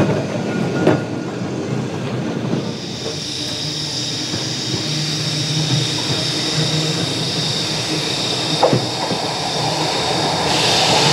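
Heritage electric trams running on rails: wheels clicking over rail joints in the first second, then a steady high-pitched wheel squeal over a rumble that starts about two and a half seconds in and grows louder near the end.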